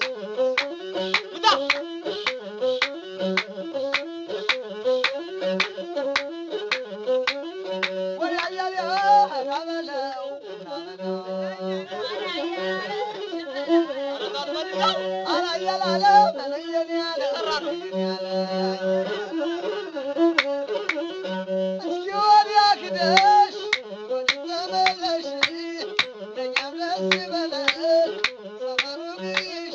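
Ethiopian azmari music: a masinko, the one-string bowed fiddle, plays a repeating melody over a steady beat of sharp percussive strikes. A voice sings through the middle stretch, where the beat drops back.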